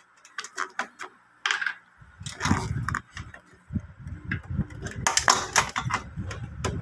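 Hand tools clicking and knocking while a scooter's fuel pump is unbolted and unclipped from the fuel tank. From about two seconds in, a low rumbling handling noise joins the clicks.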